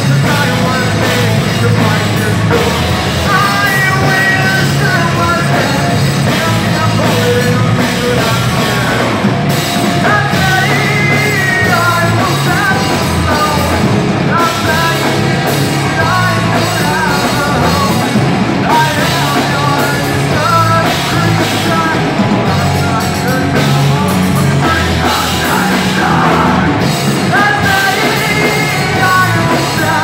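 Live rock band playing loud and without pause: electric guitars, bass guitar and drums, with a singer's vocals over the top.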